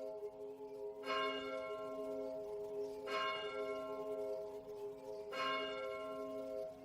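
Song intro of ringing bell-like chimes: a chord is struck about every two seconds and rings on between strikes.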